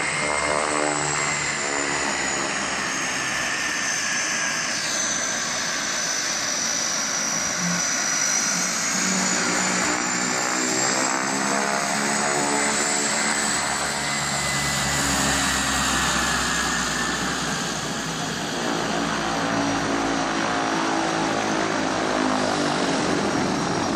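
de Havilland Canada DHC-6 Twin Otter's two PT6A turboprop engines running at taxi power: a steady propeller drone under a high turbine whine, both slowly drifting up and down in pitch as the plane turns on the apron.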